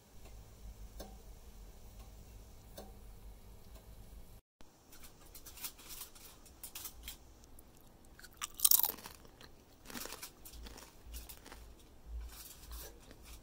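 Tortilla chips from a plate of nachos crunching as they are broken off and bitten, with close-up chewing. The loudest crunch comes a bit past the middle. The first few seconds hold only a faint low hum and a couple of soft clicks.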